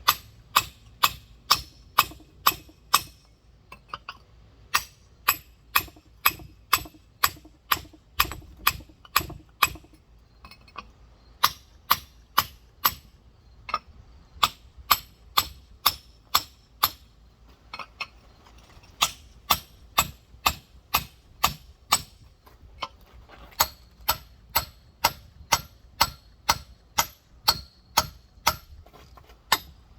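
Rock hammer tapping on the shell of a large geode, sharp clinks at about two to three a second in runs with short pauses between them. It is working the hammer all the way around the geode to score it for a clean two-sided crack.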